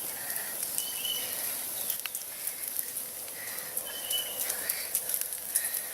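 Outdoor ambience beside a campfire: a steady high insect hum, scattered crackles from the fire, and two short bird chirps, about a second in and again about four seconds in.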